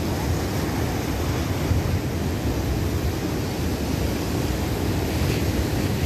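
Rough surf washing and breaking around a pier, a steady rushing noise, with wind buffeting the microphone.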